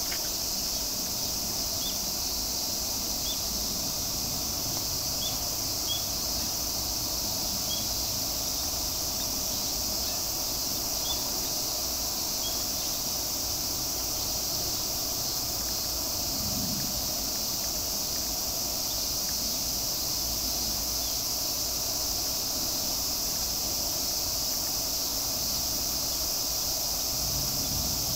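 Steady, high-pitched chorus of insects droning without a break, with a few faint short chirps in the first half.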